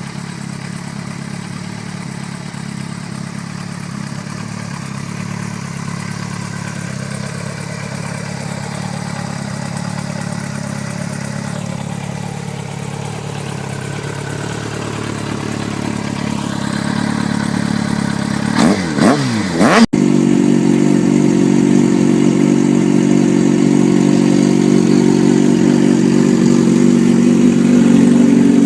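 Motorcycle engine running steadily and slowly growing louder, with a couple of quick revs about two-thirds of the way through. After an abrupt cut, a louder motorcycle engine runs steadily.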